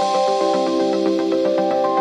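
Electronic background music: held chords that change every half second or so over a steady, quick beat.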